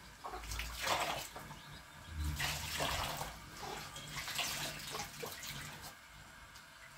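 Water poured from a plastic jug splashing into a plastic basin of water as hands and face are rinsed, in uneven splashes that die away near the end.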